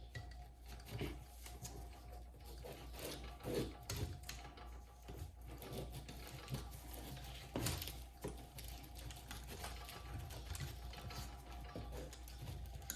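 Irregular light clicks and knocks of hand tools working on a steel car brake pedal assembly, with a faint steady hum underneath.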